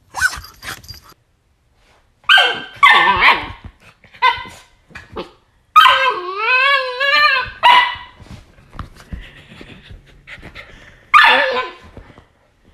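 A dog barking and yipping in short separate calls, with a long wavering cry about six seconds in and another call near the end.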